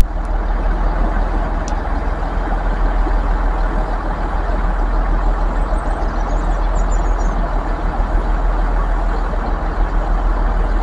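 Diesel multiple unit's underfloor engines running steadily, with a deep hum under a broad rumbling noise.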